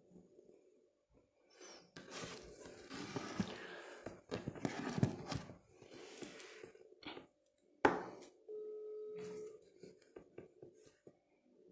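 Rustling and handling noise for a few seconds, then a sharp knock about eight seconds in. Right after the knock comes a single steady telephone line tone of about a second: the ringing tone of a phone call being connected.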